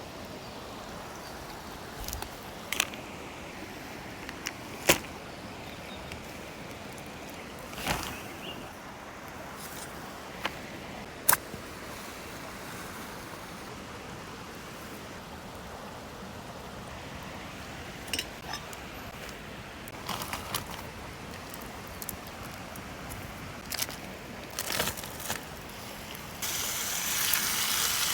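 Steady rush of a mountain stream, with scattered sharp clicks and knocks. A louder hiss starts about two seconds before the end.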